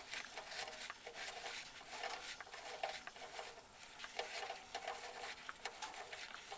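Hot engine oil dripping and trickling from a loosened drain plug into a drain pan, an irregular patter of small splashes and ticks.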